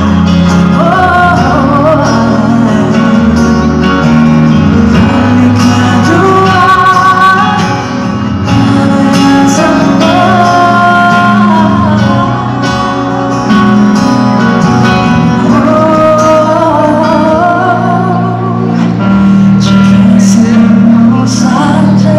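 Live pop song: a woman singing over a band through a concert PA, heard from among the audience.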